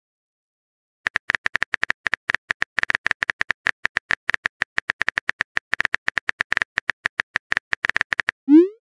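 Simulated phone-keyboard typing sound effect: a rapid run of short, evenly spaced key clicks as a text message is typed, starting about a second in. Near the end the clicks stop and a short tone sweeps quickly upward in pitch.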